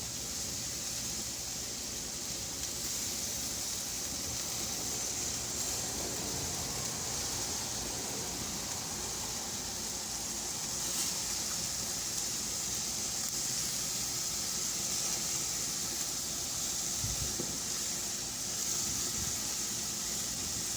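Pork barbecue skewers sizzling steadily on a grill as they are brushed with a sugary soy-and-oil basting sauce.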